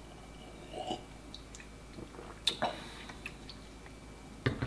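People sipping and swallowing from plastic bottles of protein water, with small mouth sounds and a few sharp clicks, the loudest knock near the end.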